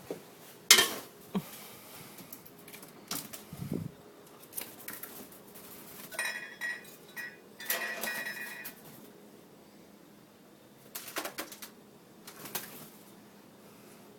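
Scattered knocks and clatter of small hard household objects being moved about, the sharpest knock about a second in. There is a brief pitched squeak around six seconds in and again about eight seconds in.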